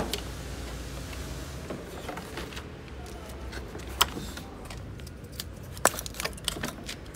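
Scattered sharp metallic clicks and clinks of hand tools and fasteners during work on a car's front end. The clicks are loudest at the start and about four and six seconds in, with a quick run of lighter clicks near the end.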